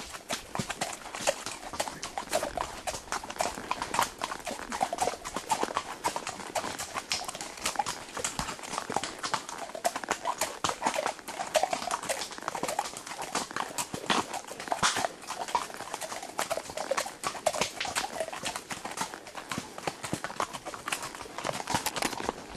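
Horses' hooves striking a rocky trail at a walk: an irregular, unbroken run of sharp clip-clops on stone.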